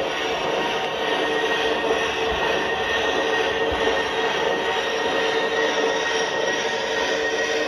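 Gauge 1 model electric locomotive (Kiss DB class E 52) running along the track: a steady whine from its drive over an even rolling noise of the wheels on the rails.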